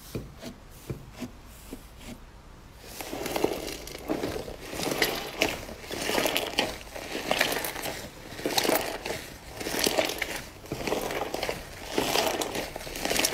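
Hands pressing and then kneading and squeezing a large lump of purple slime: a few faint small pops at first, then from about three seconds in, louder repeated squishing strokes with crackly pops, roughly once a second.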